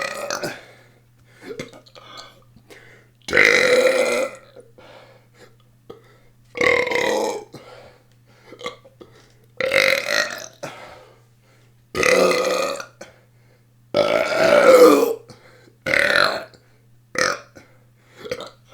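A person belching deliberately and loudly, one long burp every two to three seconds, with short, quieter burps in between.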